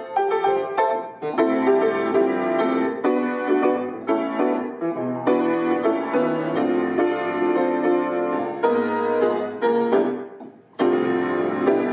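Instrumental music led by piano chords over a bass line, with no singing. It starts abruptly out of silence, dips away briefly about ten seconds in, then starts again.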